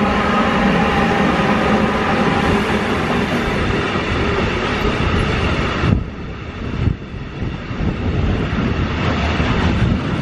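Freight train running through a station behind a Class 185 electric locomotive: a loud, steady rolling rumble of wheels on rail as the wagons pass, with a steady hum over it in the first few seconds and a short dip in the noise about six seconds in.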